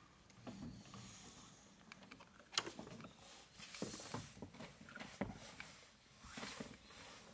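Handling noise: scattered light clicks, taps and rustles, the sharpest click about two and a half seconds in.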